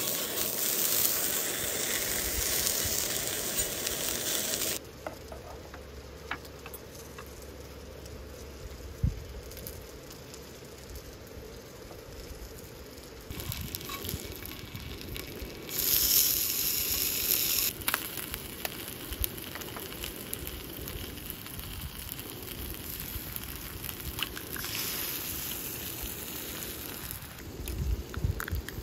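Bacon sizzling as it fries in a hot skillet, with a few small clicks. The sizzle is loud for about the first five seconds, then quieter, and grows louder again for short stretches in the middle and near the end.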